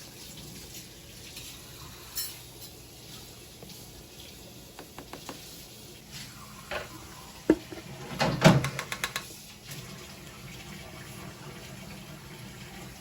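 Kitchen utensils and dishes clinking and knocking while dry baking ingredients are measured out: a few light taps, then a busier run of clinks and clatter about seven to nine seconds in.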